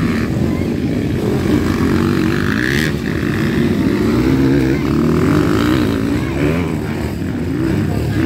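Several dirt bikes racing past on a motocross track. Their engines rev up and down as the riders work the throttle, and the overlapping engine notes keep shifting in pitch.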